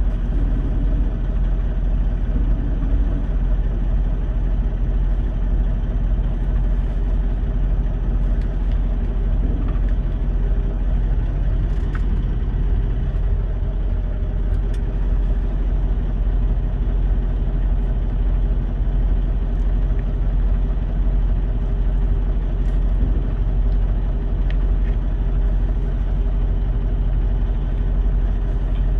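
Semi truck's diesel engine idling, a steady low rumble heard inside the cab, with a few faint clicks.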